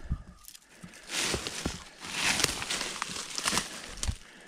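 Footsteps and rustling through forest undergrowth: two longer swishing passages with scattered snaps and crunches.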